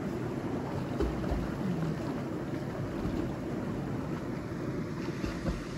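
Steady rush of a stream pouring into a rocky pool, with people splashing as they swim and a few low thumps.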